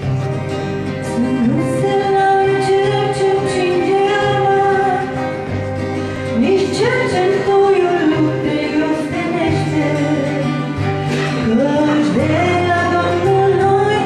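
A woman singing a Romanian Christian song, accompanied by a strummed acoustic guitar.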